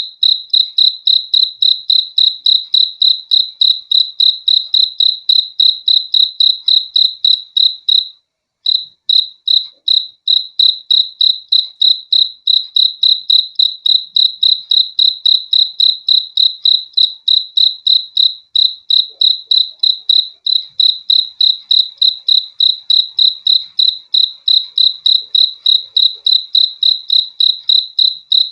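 A cricket chirping in a fast, even rhythm of short, high-pitched pulses, several each second. It stops for under a second about eight seconds in, then carries on.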